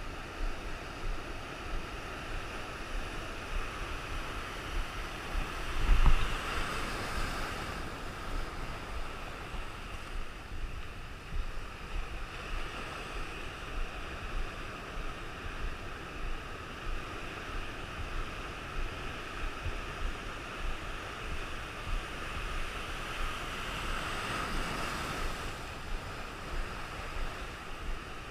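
Rough sea surf, with two big waves breaking and rushing in, one about six seconds in with a heavy low thump and another near the end, over a steady wash of water and wind on the microphone.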